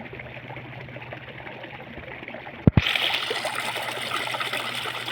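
Running water trickling steadily. Just before three seconds in come two sharp knocks, then a louder, brighter rushing hiss takes over.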